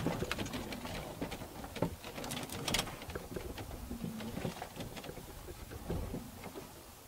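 Golf cart driving slowly over rough wooded ground: scattered clicks and knocks from the body and frame rattling over a low rumble of the tyres on the dirt and pine needles.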